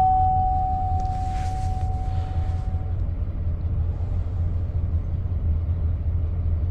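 2003 Chevrolet Silverado 2500's 6.0 L V8 idling with a steady low rumble, misfiring a little (a P0300 random misfire). A steady tone, apparently a dash warning chime, fades out about three seconds in.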